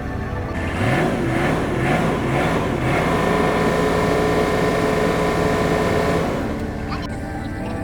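A heavy machine's engine revving up in a few rising steps, then holding a steady higher speed for a few seconds before easing back down.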